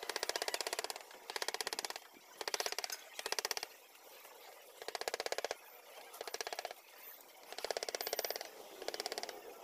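Small hand carving chisel scraping and cutting into wood in short rasping strokes, about nine of them, each under a second, with brief pauses between.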